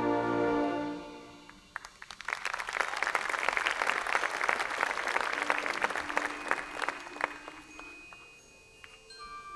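A marching band's loud held chord fades out about a second in, and crowd applause follows, swelling about two seconds in and dying away by about seven seconds. Under it the band comes back in softly with a low held note, then quiet high notes near the end.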